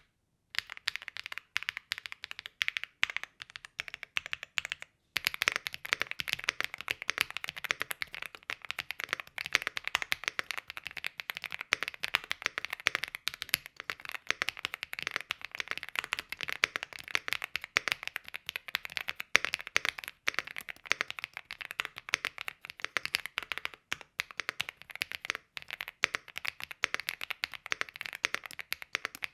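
Fast, continuous typing on a Rainy75 Pro mechanical keyboard with stock Kailh Cocoa switches, straight out of the box. The keystrokes are dense clicks with a brief break about five seconds in.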